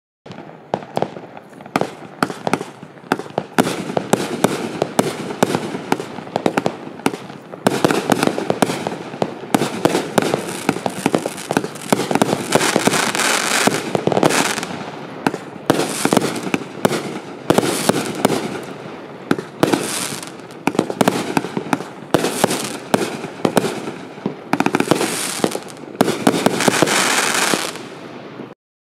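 The Last Warrior FP5018-A, a 30-shot 500-gram consumer firework cake, firing its whole display: a rapid, unbroken string of loud shots and bursts dense with sharp pops and crackle, for about 28 seconds. It stops abruptly near the end.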